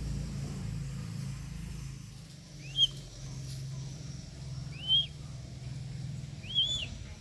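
A bird gives three short, high chirps, each rising and falling in pitch, about two seconds apart, over a steady low rumble.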